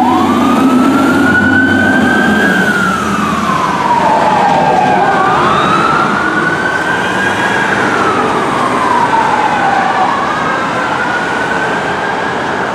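Siren of a responding fire engine and rescue ambulance in a slow wail, the pitch rising and falling about every five seconds, over traffic noise.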